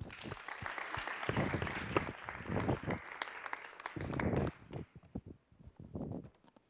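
Audience applauding to welcome a speaker, dying away about five seconds in.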